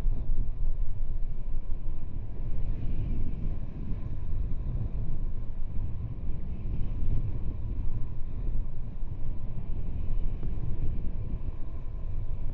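Wind buffeting the microphone of a skier's camera during a fast run down a groomed piste: a steady low rumble that rises and falls, with a fainter hiss over it.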